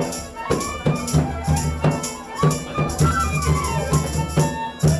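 Live Nepali folk music: a barrel-shaped hand drum keeps a steady beat, about four strokes a second, under harmonium and bamboo flute, with jingling percussion on the beat.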